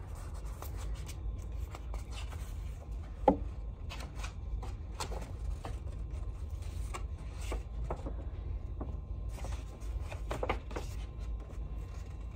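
Hands handling a box set's poster and packaging: scattered soft rustles and light clicks, with one sharper knock about three seconds in, over a steady low hum.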